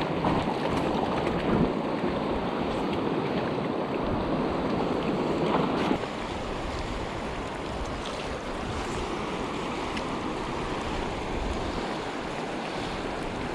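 Steady rushing of river water, with wind buffeting the microphone; the level drops a little about six seconds in.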